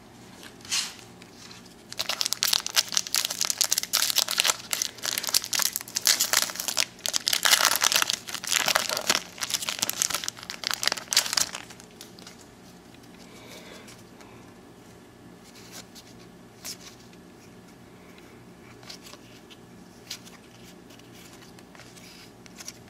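Plastic wrapper of a baseball card pack crinkling and tearing as it is opened and crumpled, for about ten seconds starting a couple of seconds in. Afterwards only soft clicks of the cards being handled.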